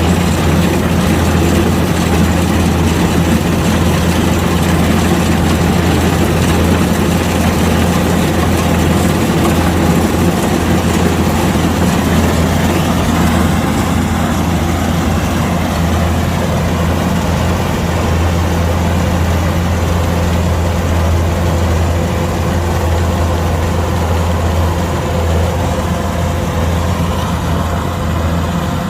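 Kubota DC-105X combine harvester's diesel engine running steadily at a constant pitch while the machine harvests rice, with a strong low hum.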